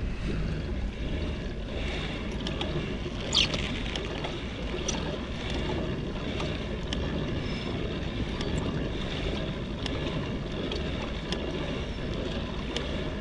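Kayak on calm sea water: steady sloshing of water against the hull and paddle, with wind noise on the microphone and a few light clicks. There is one brief louder sound about three and a half seconds in.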